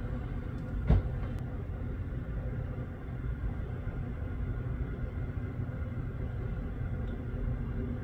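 Steady low rumble with a faint hum, and a single sharp knock about a second in.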